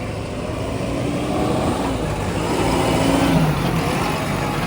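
A vehicle engine running and growing louder, peaking a little over three seconds in, where its pitch rises briefly.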